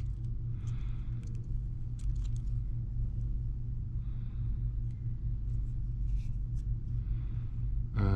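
Steady low electrical hum, with faint scraping and a few light clicks from a small tool cleaning old glass and adhesive off the edge of a smartwatch housing.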